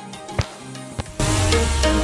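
Background music: a quiet stretch with a few percussive hits, then the full arrangement with a strong bass line comes in about a second in.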